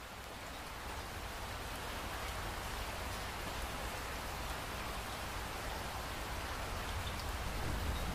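Steady rain falling, fading in over the first second, with a low rumble underneath that swells near the end.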